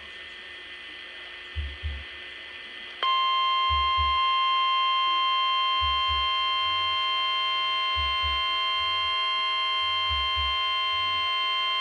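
Emergency Alert System attention signal: a loud, steady electronic alarm tone that cuts in about three seconds in, after a few seconds of static hiss. A low thump repeats about every two seconds underneath.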